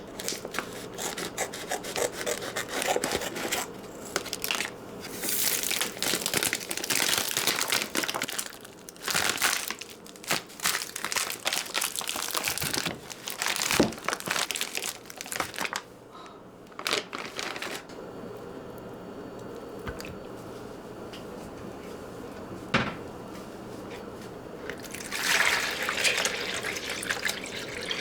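Kitchen work at a sink: water running and splashing in spells of a few seconds, with scattered clicks, knocks and rustling between them.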